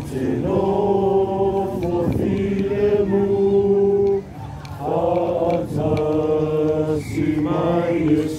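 A group of young men singing together in slow, held notes, phrase after phrase, with a short break a little after the middle.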